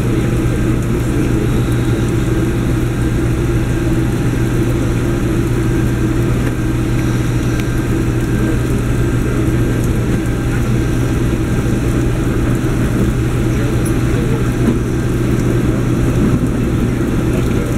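Apron bus engine idling, a steady, unchanging drone with a low hum.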